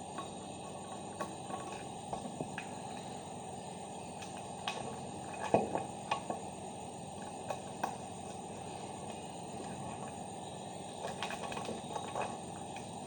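Scattered light clicks and taps of a plastic magnetic contactor and overload relay being handled and fitted together, over a steady low hiss.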